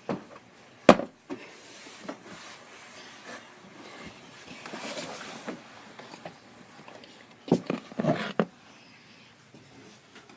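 Sharp knocks and clatter of things being handled: the loudest knock about a second in, a brief rustle around five seconds, and a few more knocks near eight seconds.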